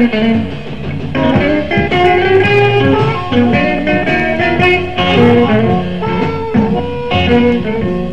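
A live electric blues band playing an instrumental passage: lead electric guitar over bass and drums, with a steady beat.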